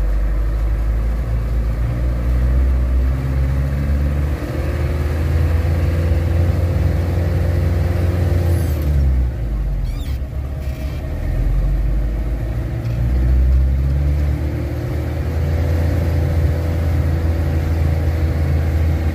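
Engine of a heavily loaded truck heard from inside the cab, its pitch climbing over several seconds, falling away about nine seconds in, then climbing again.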